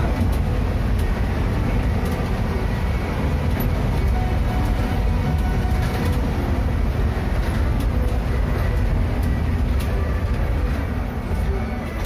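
Vehicle moving along a rough forest road, heard from inside the cabin: a steady low rumble with scattered rattles and knocks.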